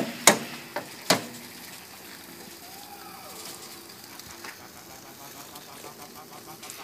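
Four sharp clicks and knocks in about the first second as skewers are lifted off a grill grate, then a faint steady background.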